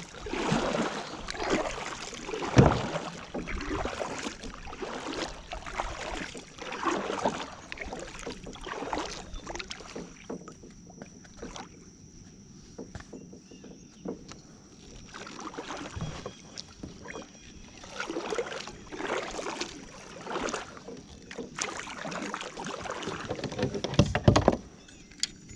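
Kayak on the water: irregular paddle swishes and splashes, with two sharp knocks against the hull, one early and one near the end.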